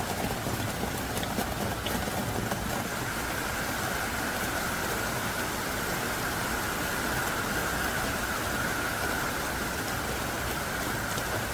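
Heavy rain pouring down steadily, a dense, even hiss with a few separate drops ticking through it.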